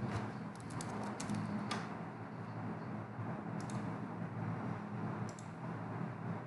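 Computer keyboard keys clicking in a quick run of typing for about the first two seconds. Then come two short, separate double clicks, about three and a half and five seconds in, over a steady low hum.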